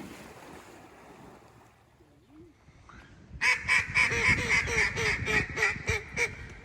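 Mallard duck call blown hard in a fast run of about a dozen loud quacks, about four a second, starting about three and a half seconds in, calling to draw in passing mallards. Before it, wind rushes on the microphone.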